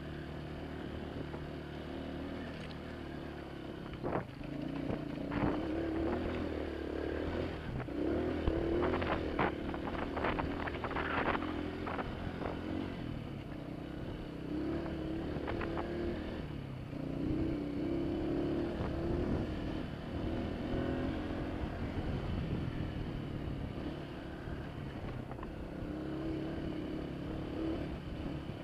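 Honda CRF230F dirt bike's air-cooled single-cylinder four-stroke engine running under way, its pitch rising and falling with the throttle. A run of sharp knocks and clatters comes in about four seconds in and keeps on for several seconds.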